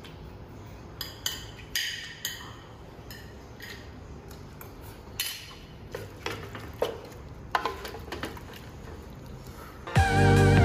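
A metal fork clinking and scraping against a ceramic plate in irregular clinks, several of them ringing briefly. Loud guitar music comes in near the end.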